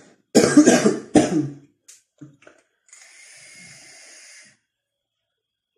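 A man coughs twice, hard, in quick succession. About three seconds in there is a steady hiss lasting about a second and a half as he takes a drag on a vape.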